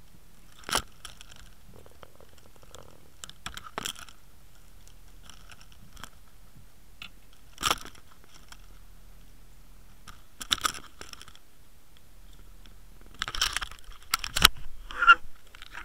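Scattered knocks, clatters and scrapes of fishing gear and a caught cod being handled close to the microphone on a boat deck, with a denser, louder run of knocks near the end.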